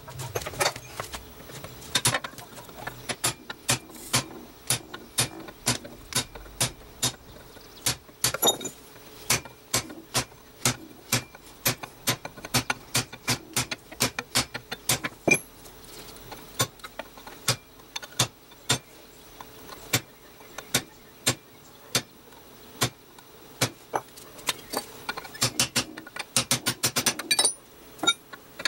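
Hammer blows on steel: a long series of sharp metallic strikes, roughly one to three a second with short pauses, quickening near the end, as the spring-steel pommel head is worked.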